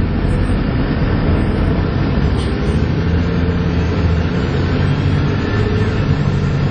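Volvo B7TL bus's six-cylinder diesel engine running hard under load, heard from inside the bus, with the steady whine that bus enthusiasts call 'hoovering'.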